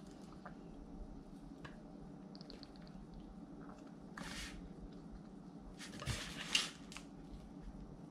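Meat injector pushing butter marinade into a raw chicken: quiet wet squishing with a couple of brief louder squirts, the louder one about six seconds in, over a low steady hum.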